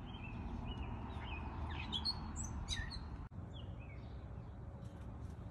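Small birds chirping, a run of short high calls that thin out after about three seconds, over a steady low rumble. The sound drops out for an instant just past halfway.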